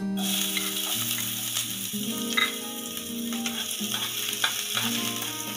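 Chopped onion dropped into hot ghee in a metal frying pan, sizzling suddenly on contact and frying steadily, with a spatula clicking against the pan a couple of times as it is stirred.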